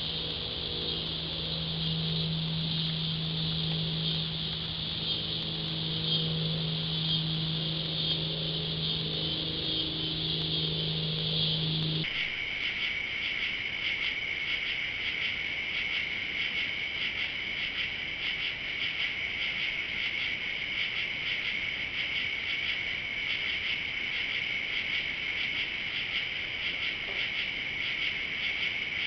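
Steady chorus of summer insects, with a low steady hum beneath it. About twelve seconds in the sound cuts abruptly to a different insect chorus, a rapidly pulsing one pitched a little lower, with no hum.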